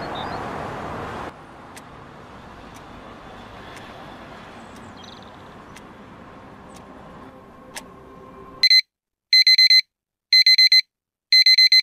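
Smartphone alarm beeping: four bursts of quick high beeps about a second apart, the first one short, starting over a faint steady background hiss that drops out when the alarm begins.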